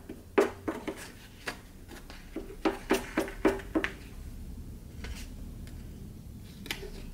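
A quick run of sharp clicks and taps as hands handle a paper pattern and small plastic items on a scroll saw's table, about a dozen in the first four seconds, then a faint low hum with one more click near the end.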